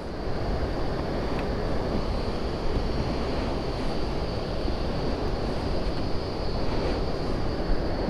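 Steady rush of a waterfall's falling water, an even noise with no rhythm.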